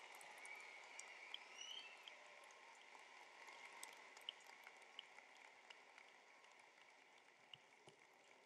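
Faint applause from a large audience: a haze of many small claps with a few whistles, fading out.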